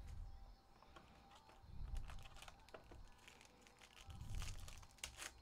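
Faint crinkling of a foil trading-card pack wrapper being handled, with a few soft low thumps from handling on the table.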